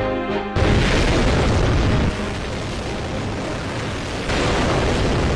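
A hydrogen-oxygen rocket engine firing on a ground test stand: a loud, steady rushing noise. It starts abruptly about half a second in, cutting off a few notes of music, and dips in level for a couple of seconds in the middle.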